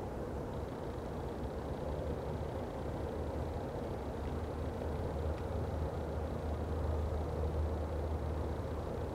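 Steady low rumble of distant road traffic, growing slightly louder about six seconds in and easing near the end.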